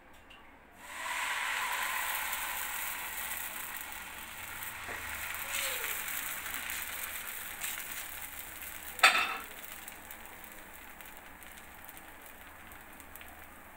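Dosa batter sizzling as it meets a hot tawa: the hiss starts suddenly about a second in and fades slowly over the next several seconds. A single sharp tap about nine seconds in.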